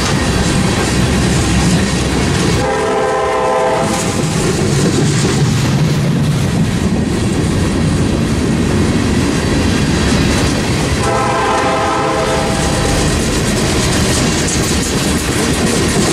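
Freight train of tank cars rolling slowly past, a steady rumble with wheels clacking over the rail joints. A locomotive horn sounds twice, about three seconds in and again about eleven seconds in, the second blast longer.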